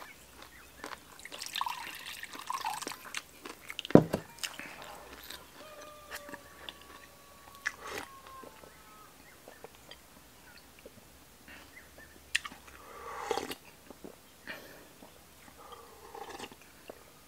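Person eating: chewing and sipping from a porcelain bowl, with scattered small clicks and one sharp knock about four seconds in.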